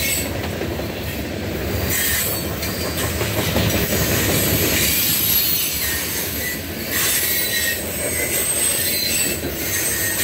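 Freight train's covered hopper and tank cars rolling past: a steady rumble of steel wheels on rail, with high-pitched wheel squeal that comes and goes.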